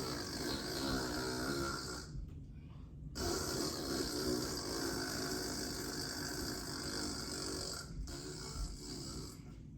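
A woman snoring loudly and deliberately, in long rattling spells, to fake heavy sleep-snoring. The snoring breaks off for about a second, two seconds in, and again briefly near the end.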